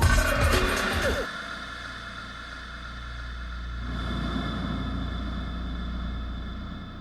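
Music fading out about a second in, then a steady low rumble with a faint hum, like an engine idling.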